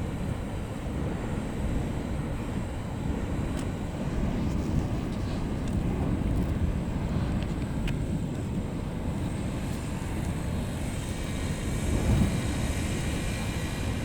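Deep, steady rumbling roar of an active volcano's boiling lava lake, churning without letup.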